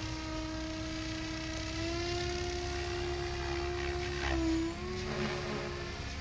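Goblin 700 radio-controlled helicopter in flight, its rotor and drive giving a steady whine with a low hum beneath. The pitch steps up slightly about two seconds in, goes briefly higher and louder just after four seconds, then dips and settles.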